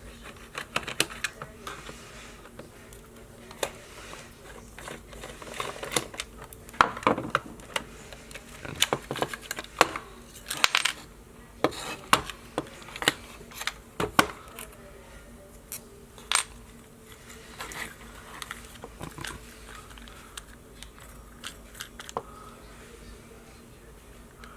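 Scattered clicks, taps and metallic clinks of a Ronco Pocket Fisherman, a small fishing rod-and-reel, being unscrewed and taken apart by hand. Some of the taps ring briefly.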